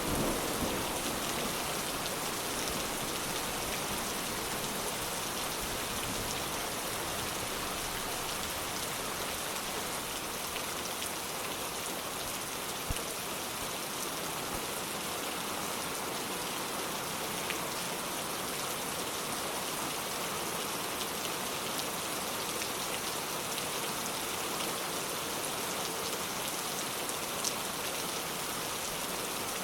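Steady rain falling, an even hiss with a few sharper individual drop hits.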